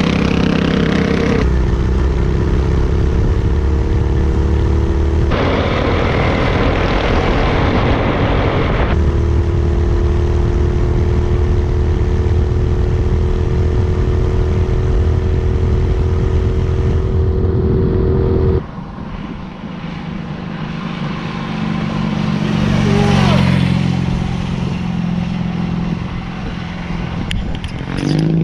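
Twin Predator 212 single-cylinder four-stroke engines on a minibike running hard at a steady high speed, with heavy wind rush, in clips joined by abrupt cuts. Near the end it is quieter, and the engines rev up and then drop back.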